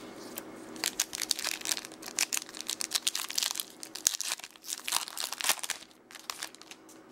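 Plastic trading-card pack wrapper crinkling and being torn open: a dense run of crackles that lasts about five seconds and dies away near the end.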